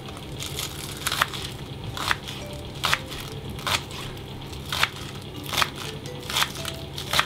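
A chef's knife chopping a spring onion on a wooden cutting board, one crunchy cut roughly every second.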